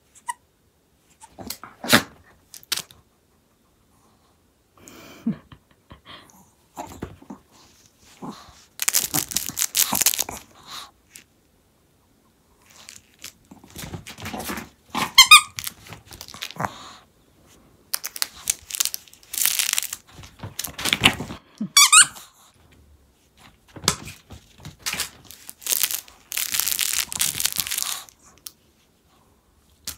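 Squeaky plush dog toy being bitten and tugged by a Maltese: bursts of rustling and crinkling, with two long wavering squeaks that rise in pitch, one about halfway through and one about two thirds of the way in.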